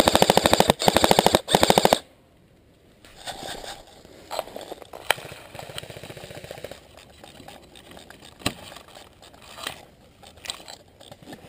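Airsoft gun firing on full auto in three quick, loud bursts over the first two seconds. After that come softer rustling and brushing of ferns and undergrowth, with a few sharp snaps and clicks, as someone moves low through them.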